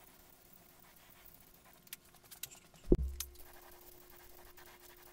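Faint short hisses of an aerosol spray-paint can spraying black enamel onto wooden boards, with a single dull thump about three seconds in.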